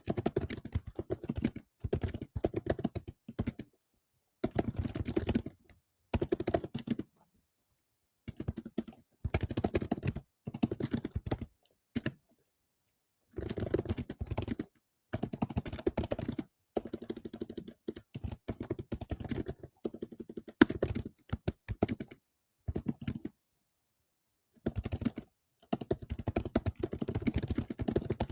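Typing on a computer keyboard in quick runs of keystrokes a second or two long, with brief pauses between them, as a long text prompt is written.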